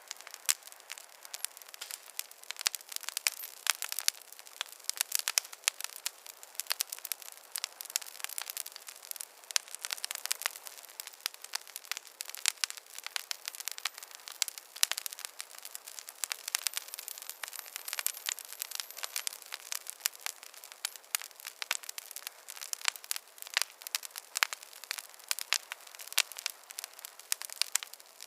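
Wood fire in a fireplace crackling: a dense, irregular run of small pops and snaps, several a second.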